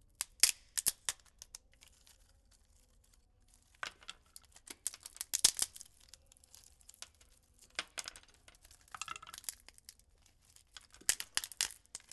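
Carpentry work noise: sharp crackling and clicking in four short clusters a few seconds apart, like wood being split, torn or worked by hand.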